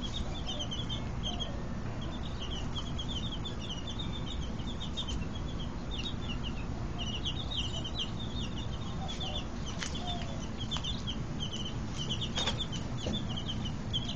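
A brood of baby chicks peeping continuously in quick, short, high chirps, over a steady low background rumble, with a few faint clicks near the end.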